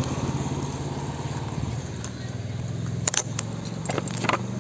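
Motorcycle engine running at a steady low pitch, easing off a little over the first two seconds. A few sharp clicks come near the end.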